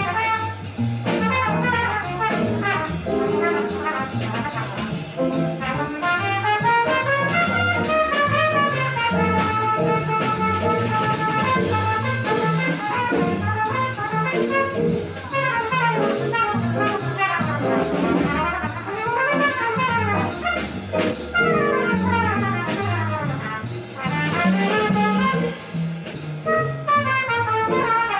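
Small jazz combo playing live: trumpet soloing in quick running lines over upright bass, electric keyboard and drum kit.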